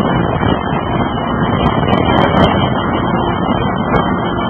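Steady, loud machinery noise of a hydraulic forging press running under operator control, with a few sharp clicks about two seconds in and another near the end.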